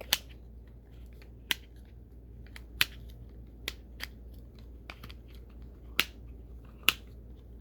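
Sharp plastic clicks from a fidget ball toy as its pieces are pulled out and snapped back into place, coming irregularly, about eight loud clicks with fainter ones between.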